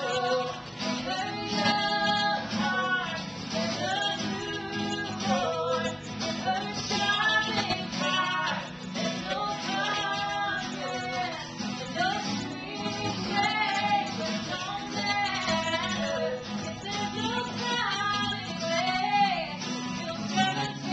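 A woman singing a song live, accompanied by a strummed acoustic guitar.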